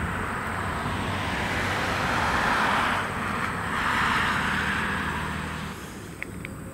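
A broad rushing noise, like a vehicle passing, swells over a couple of seconds and fades, over a low steady engine hum. Two short clicks come near the end.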